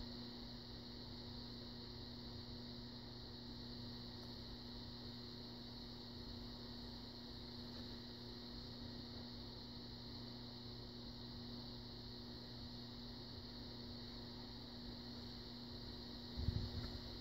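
Faint steady electrical hum with background hiss; no distinct pick clicks stand out. A brief low sound near the end.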